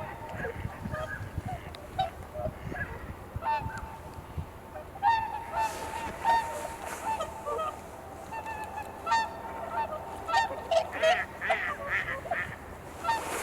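A flock of swans calling: many overlapping short honking 'koo-koo' calls. Wind rumbles on the microphone during the first few seconds.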